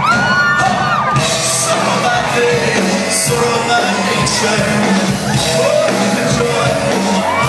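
Live band playing a pop song with singing over a steady bass line and beat, heard from within the crowd, with some crowd shouting mixed in.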